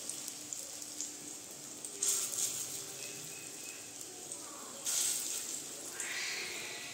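Pea and moong dal fritters sizzling in hot mustard oil in a steel kadai, a steady frying hiss. It flares louder twice, about two seconds in and again about five seconds in, as fresh lumps of batter are dropped into the oil.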